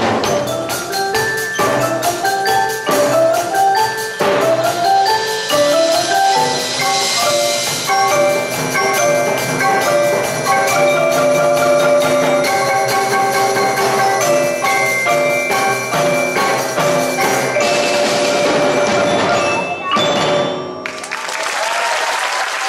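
Percussion ensemble playing: marimbas and other mallet keyboards run quick repeated melodic figures over a steady drum-kit beat. In the last few seconds the mallet notes drop away into a loud noisy wash.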